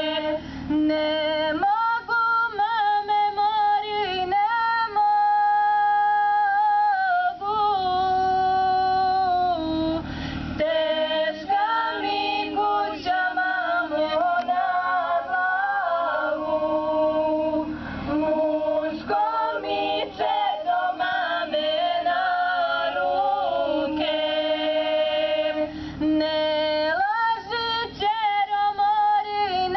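A small group of women singing unaccompanied, in long held notes with short pauses for breath.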